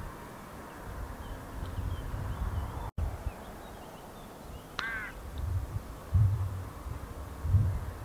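A single short bird call about five seconds in, over faint high chirps from small birds in the distance. Low rumbles run underneath and come loudest a little after six seconds and near the end.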